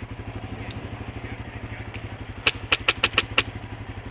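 ATV engine idling with a steady, even pulse, and about halfway through a quick string of six sharp airsoft gun shots, the loudest sounds.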